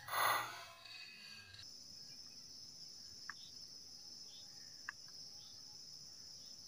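A short loud burst right at the start, then, from about two seconds in, a steady high-pitched insect drone, with two faint ticks in the middle.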